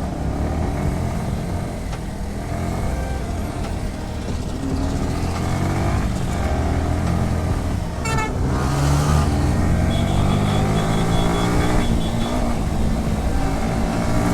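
Motorcycle engine running under way, its pitch rising and falling with the throttle and gear changes, amid road traffic. A high, steady beeping tone sounds for about two seconds around ten seconds in.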